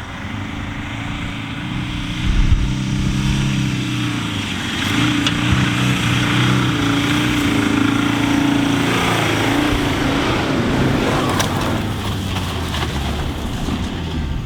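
A 4x4's engine running under load while driving in sand, its pitch shifting as the throttle changes, with a steady hiss of wind over it.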